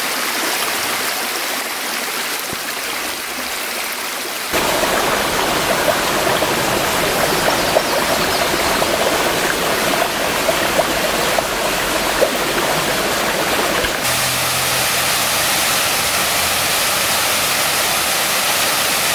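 Steady rush of running water: a shallow stream sliding over rocks, then a small waterfall pouring into a pool. The sound changes abruptly twice, about four seconds in and again near the end, louder and fuller after the first change.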